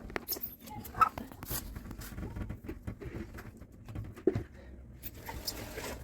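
Irregular clicks, light knocks and rubbing noises of small parts being handled, with sharper knocks about a second in and again past four seconds.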